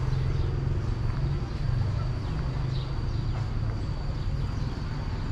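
Outdoor ambience: a steady low rumble like distant traffic, a thin steady high tone, and scattered short chirps of birds.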